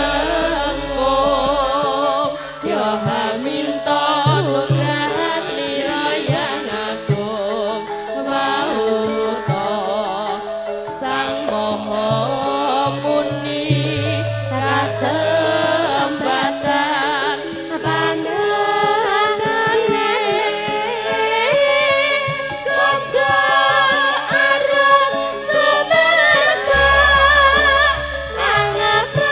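Javanese gending music: gamelan ensemble with a singer's wavering, ornamented vocal line. Deep held low notes come in about halfway and again near the end.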